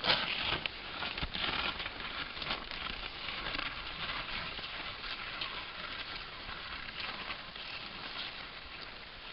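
Skis sliding and scraping over crusty snow: a steady crackling hiss with many small ticks, loudest at the start and easing slightly later on.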